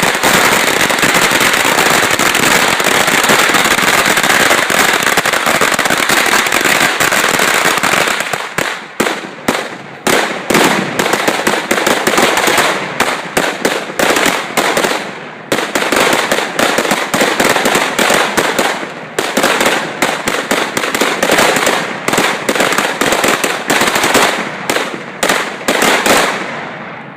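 A chain of firecrackers (chain thunders) going off: a dense, rapid run of bangs for about eight seconds, then thinning into a stream of separate bangs with short gaps, stopping near the end.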